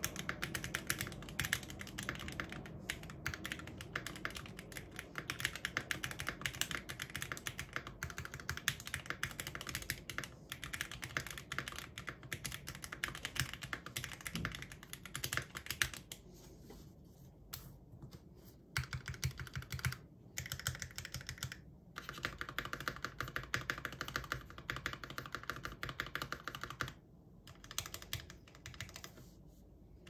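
Steady typing on a Tofu 65 mechanical keyboard fitted with double-shot PBT keycaps and stabilisers greased with dielectric grease: a dense stream of key clacks, broken by several brief pauses in the second half.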